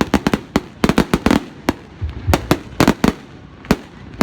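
Fireworks going off: rapid, irregular volleys of sharp bangs and pops, several a second, with a brief lull about two seconds in.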